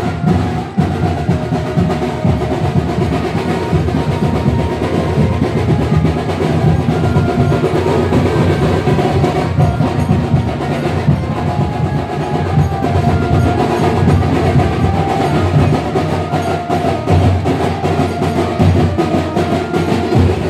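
Loud festival music with fast, dense drumming that does not let up.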